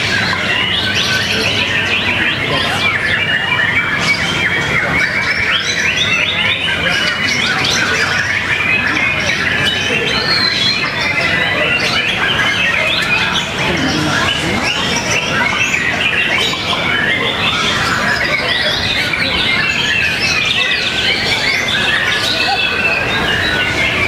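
Many caged songbirds singing at once in a singing contest, most likely white-rumped shamas (murai batu). Dense, overlapping chirps and whistles keep going without a break.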